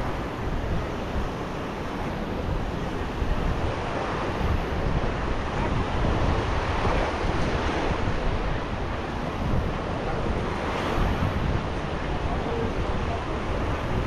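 Sea waves washing onto a beach, the surf swelling and easing, with wind rumbling on the microphone.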